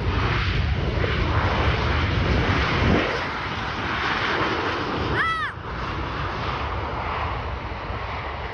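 American Airlines airliner's jet engines passing close by, a loud steady noise that is strongest in the first three seconds and then eases off. A short chirp rises and falls in pitch about five seconds in.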